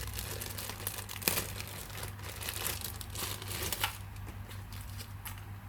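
Packaging crinkling and rustling as the unit is handled, with a few sharp clicks, dying down in the last couple of seconds.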